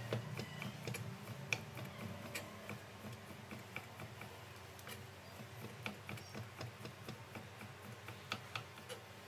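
Kitchen knife slicing a thin fried-egg crepe into fine shreds on a cutting board: light, irregular taps of the blade on the board, a few a second.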